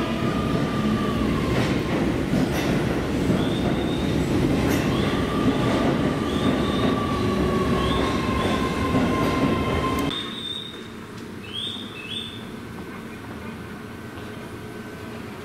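Keio Line electric train running at the station, a loud steady rumble with its wheels squealing in high ringing tones. About ten seconds in the rumble cuts off suddenly, leaving a quieter background with a few short high squeals.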